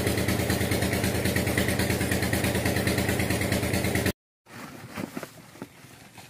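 Engine driving an irrigation tube-well pump, running steadily with a fast, even beat, over the splash of water pouring from the concrete outlet. It cuts off abruptly about four seconds in.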